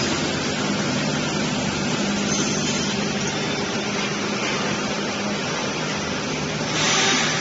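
CNC wire bending machine running as it feeds and bends steel wire: a steady machine hum under constant noise, with a short burst of hiss near the end.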